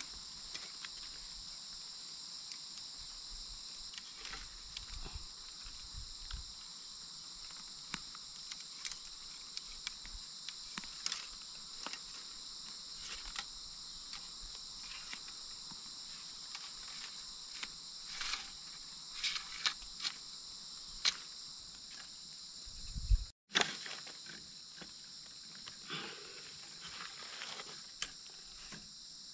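Steady high-pitched drone of insects in the forest, with scattered light clicks and knocks of bamboo poles and strips being handled and fitted together.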